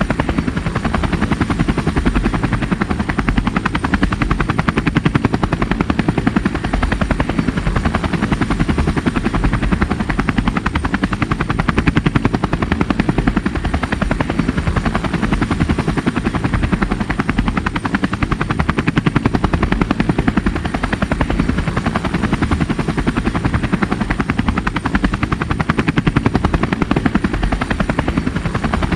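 Helicopter rotor sound: a steady, fast chopping beat with a faint thin high whine above it.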